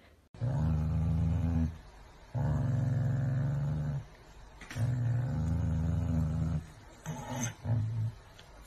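A corgi growling low: three long, steady growls, then a few short ones near the end. It is a food-guarding warning.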